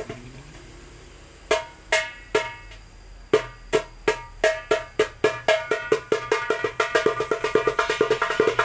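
A 9-inch darbuka with a Remo plastic (mika) head is played by hand, each stroke sharp and ringing. After a quiet second and a half come a few separate strokes, then a steady rhythm that grows denser into quick rolls from about the middle onward.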